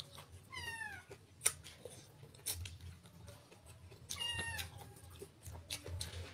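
A cat meows twice, each meow falling in pitch, one about half a second in and one about four seconds in. Scattered small clicks and smacks of eating by hand come between the meows.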